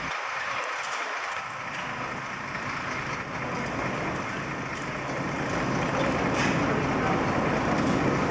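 Steady engine rumble of a heavy vehicle, growing louder about halfway through.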